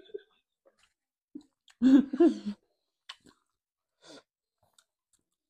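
Quiet eating with the hands: faint chewing and mouth clicks, and one short vocal sound about two seconds in.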